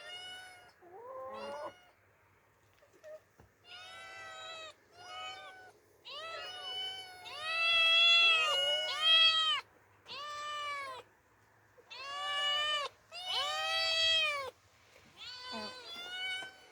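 Two cats meowing over and over in high, arching calls of about half a second to a second each, the two voices overlapping around the middle.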